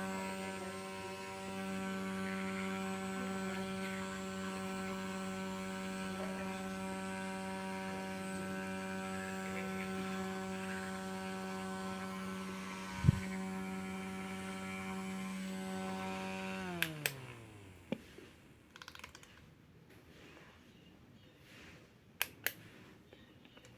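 Small electric fan of a portable makeup mirror running with a steady hum. It is switched off about seventeen seconds in and winds down, its pitch falling away. A single sharp knock comes partway through, and a few light clicks follow the wind-down.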